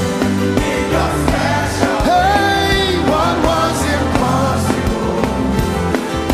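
Live gospel worship music: a full band with sustained bass and a wavering, gliding lead melody over it.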